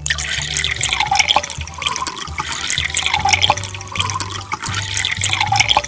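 Cartoon sound effect of running, bubbling water with many small drips and pops, over a steady low music bed.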